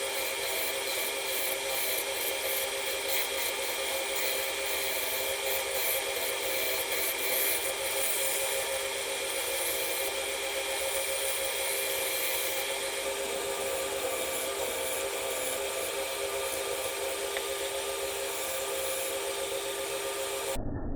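Wood lathe running with a steady motor hum while a tool works the spinning wood, giving a continuous scraping hiss. The sound cuts off suddenly near the end.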